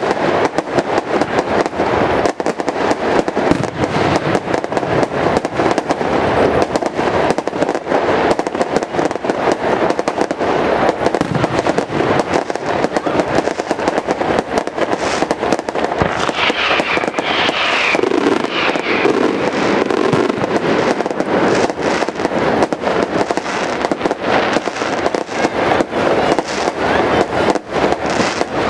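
Fireworks going off: a dense, unbroken crackle of many small bangs.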